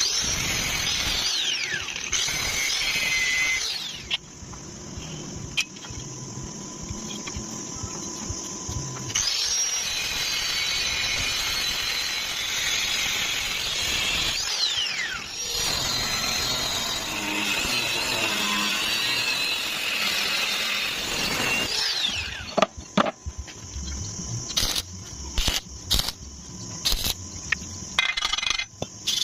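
Angle grinder working steel: a high whine that sags in pitch as the disc bites and climbs back as it is lifted, in long spells. Near the end it gives way to a series of sharp metallic knocks.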